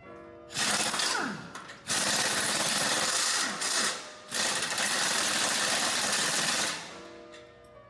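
Power tool running in three long bursts, with a falling whine about a second in as it winds down, over faint background music.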